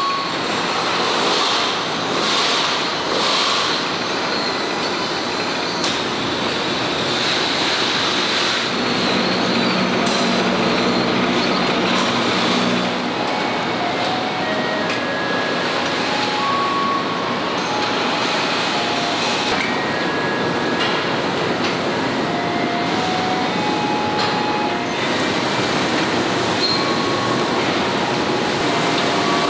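Assembly-line noise of an overhead conveyor carrying suspended tractor engine-and-transmission assemblies: a steady rolling rumble like rail cars, with short squeaks and beeps at scattered pitches, and a low hum that comes in for a few seconds about a third of the way through.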